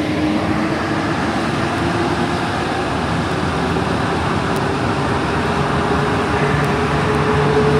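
Alstom NS-93 rubber-tyred metro train accelerating, heard from its cab: steady running noise under a traction-motor whine that climbs slowly in pitch as the train gathers speed.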